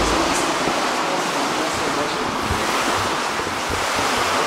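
Steady, even rushing noise in a tiled spa area.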